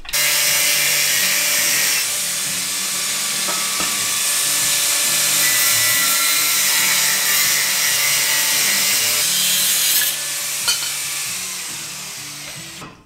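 Corded angle grinder cutting through a stainless-steel exhaust pipe: a loud, steady grinding hiss that starts abruptly. About ten seconds in the cut ends and the disc winds down.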